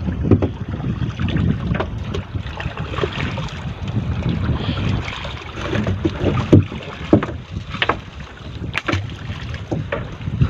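A fishing net being hauled by hand into a small outrigger canoe: water splashing and lapping at the hull, with scattered knocks and clatters as the net and its weights come over the side. Wind buffets the microphone throughout.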